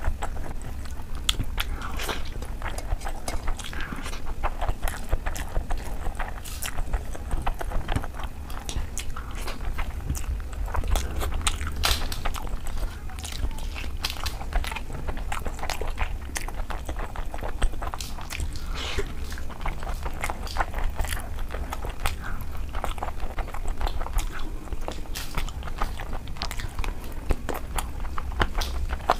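Close-miked eating: crisp papad (poppadoms) being bitten and chewed, a dense, irregular run of crunching crackles.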